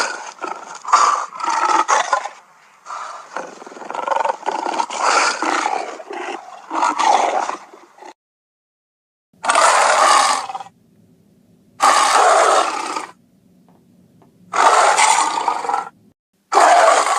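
Lion calls: a close run of loud growling roars for about eight seconds, then, after a short silence, four separate roars, each about a second long and a second or two apart.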